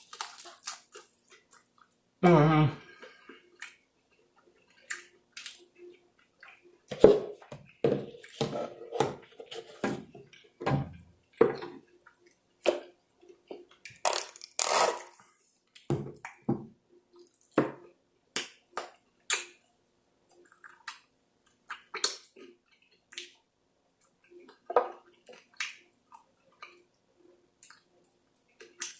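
Close-miked eating of sauced chicken wings: wet chewing, lip smacks and sucking, in irregular short clicks, with a short low vocal sound about two seconds in.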